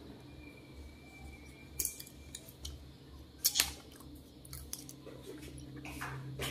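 Close-up eating sounds: a few short, sharp wet clicks and smacks as small dark berries are bitten and pulled off a leafy sprig, the loudest a quick pair about three and a half seconds in, over a faint low hum.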